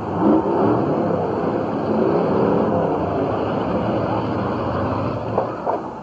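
Several demolition-derby cars running on a dirt track, their engines revving up and down, with two short knocks near the end.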